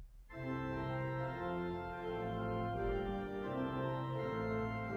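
Organ music: slow, sustained chords that change every second or so.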